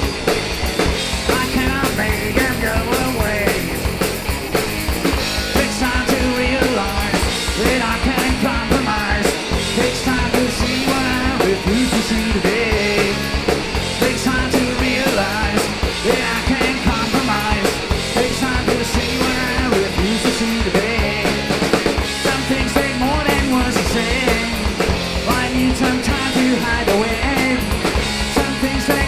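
Rock band playing a song live, with a busy drum kit driving a steady beat under the instruments and vocals.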